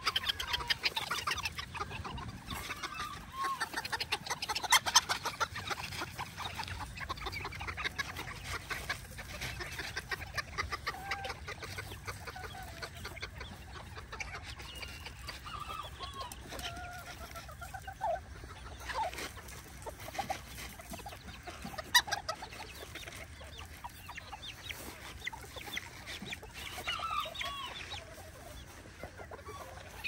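Bantam chickens clucking, with short rising-and-falling calls scattered throughout and a few sharp clicks.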